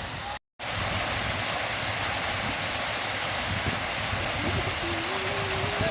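Small waterfall splashing into a pool: a steady rush of falling water, with a brief dropout about half a second in.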